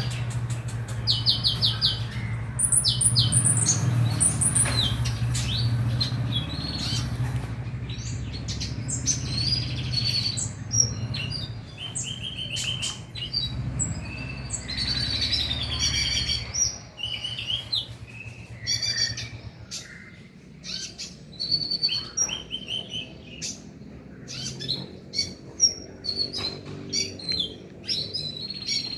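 Kolibri ninja (a sunbird) singing a fast, varied song of high chirps and short trills: a bait song used to set other konin singing. A steady low hum runs under the first half and stops about halfway through.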